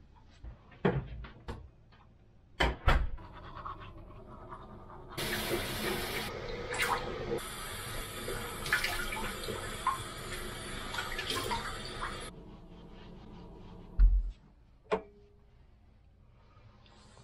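Washbasin tap running for about seven seconds, with splashing as a face is washed under it. A few knocks come before it, and a thump and a click follow.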